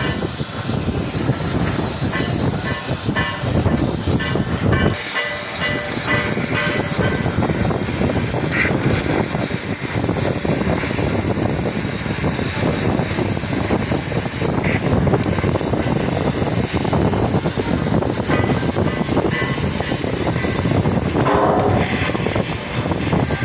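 CNC fiber laser cutting machine running, a loud steady rushing, hissing noise with a few brief dips.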